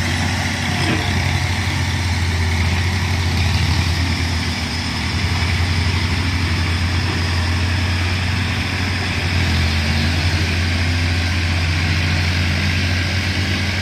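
Diesel engines of a tractor and an excavator running steadily: a deep, even engine hum with no change in speed.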